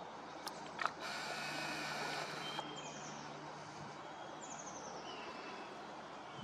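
Outdoor ambience with wind, and a small songbird repeating short, high, falling chirps. Near the start come two sharp clicks, followed by a buzzing mechanical whirr for about a second and a half.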